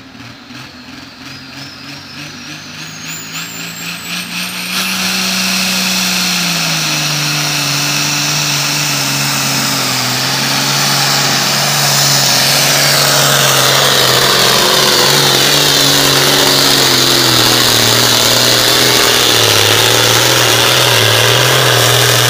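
Super Farm class pulling tractor's turbocharged diesel engine at full power during a pull. A high turbo whistle rises over the first few seconds as the sound builds, then a loud, steady run from about five seconds in. The engine note drops a little a couple of seconds later and holds there as it pulls the sled.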